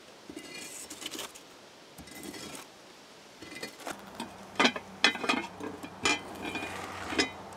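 A metal poker scraping and raking embers across the floor of a wood-fired clay bread oven. Then a run of sharp metallic clinks and knocks as a lidded pot is handled and set inside the oven.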